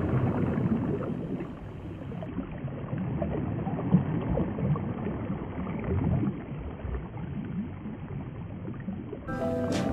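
Steady rushing, sloshing water, with musical notes coming in near the end.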